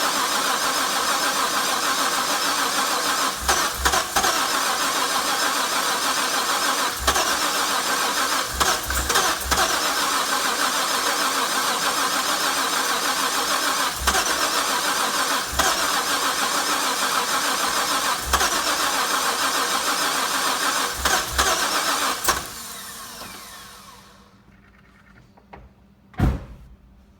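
Starter motor cranking a Harrop-supercharged LS1 V8 for about 22 seconds without it catching, with several short low thumps along the way. The cranking then winds down with falling pitch, and one sharp knock follows a couple of seconds later. The engine has fuel pressure but won't start.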